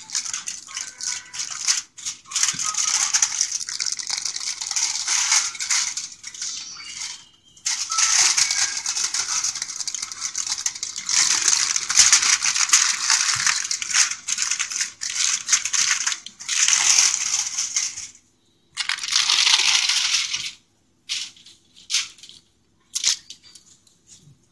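Aluminium foil crinkling and crackling as hands roll it up around raw chicken and bacon, in long bursts with short pauses, thinning to a few brief crackles near the end.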